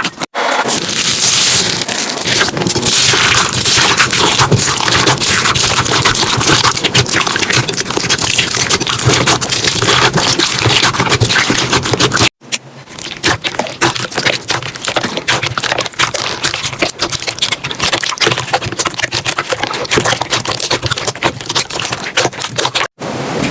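Slime being squeezed, pressed and poked by hand, making a dense run of crackling clicks and pops. The sound cuts off abruptly about halfway through and starts again, and once more just before the end.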